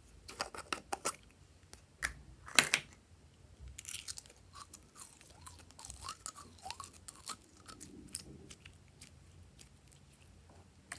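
Glossy slime squeezed out of a soft plastic container and worked by hand: quick sticky clicks, two louder snapping squelches about two and two and a half seconds in, then a run of small crackles and pops as it is pressed and stretched.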